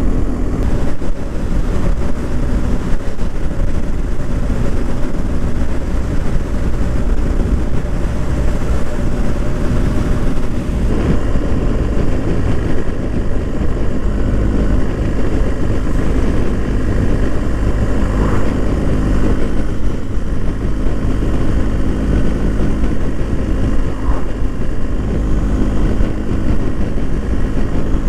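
BMW R1250 GS boxer-twin engine running at a steady cruising pace while riding, heard through a steady rush of wind on the microphone.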